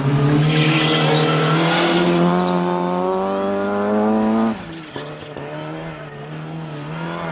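Rally car's engine revving hard as it passes close and accelerates away through a bend, its note rising steadily. About four and a half seconds in the sound drops abruptly, and the engine runs on more quietly as the car pulls away.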